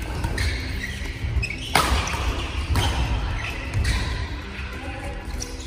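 Badminton doubles rally: rackets strike the shuttlecock with sharp cracks about once a second, and shoes squeak and thud on the wooden court floor. The sound echoes in a large gym hall.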